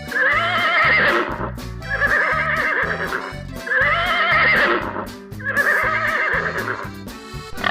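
An animal call, four times in a row, each about a second and a half long with a wavering pitch, over background music with a repeating bass line.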